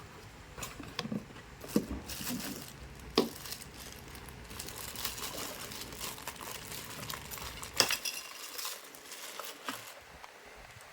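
Plastic packaging crinkling and rustling as it is handled, with a few sharp clicks and knocks of hard items being set down or bumped, the loudest about two, three and eight seconds in.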